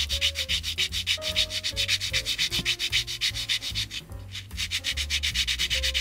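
Chrome-plated plastic model engine part rubbed on a sandpaper block in quick, short back-and-forth strokes, a steady dry rasping with a brief pause about four seconds in. The sanding is flattening the part's gluing face and stripping the chrome plating off it.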